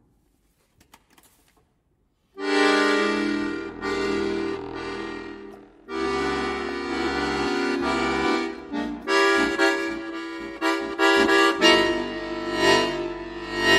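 Chromatic button accordion playing a contemporary classical solo. After about two seconds of near silence with a few faint clicks, a loud chord enters suddenly and is held, a second chord follows, then come quick short jabs and swelling, pulsing chords.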